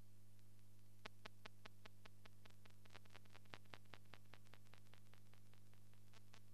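Faint steady electrical hum from a silent film's transfer, joined about a second in by a regular ticking of about five clicks a second.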